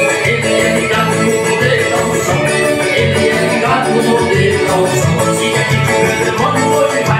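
A man singing a gospel song into a microphone over loud backing music with a steady beat.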